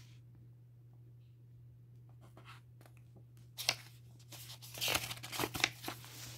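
Pages of a paperback graphic novel being turned by hand: a quiet stretch, a single light tap a little past halfway, then a second or so of paper rustling and flapping near the end.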